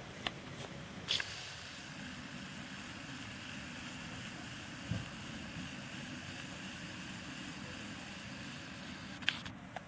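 Steady low rumble and hiss of distant background noise, broken by a few sharp clicks near the start and near the end and one dull thump midway.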